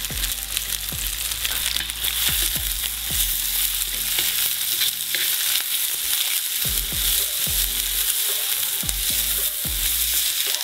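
Sliced onions sizzling in hot sunflower oil in a cast-iron kazan, stirred around the pan with a wooden spatula.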